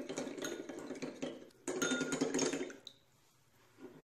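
A metal beater stirring a cornflour and water slurry in a ceramic bowl, scraping and clinking against the bowl in two bouts, stopping about three seconds in.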